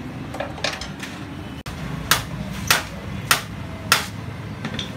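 Four sharp hammer blows, evenly spaced a little over half a second apart, over a steady low hum. A couple of lighter knocks come before them.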